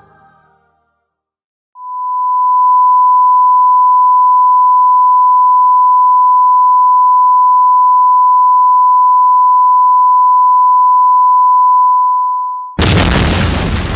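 A steady pure beep tone near 1 kHz, held for about eleven seconds with a soft fade in and out. In the last second a sudden loud explosion-like boom cuts in.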